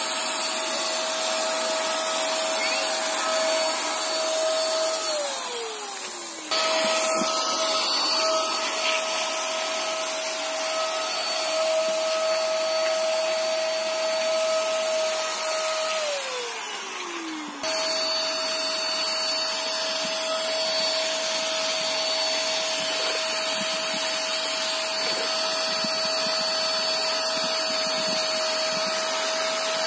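Electric paint spray machine running with a steady high motor whine and airy hiss. Twice the motor winds down with a falling pitch as it is switched off, and each time the full running sound comes back abruptly.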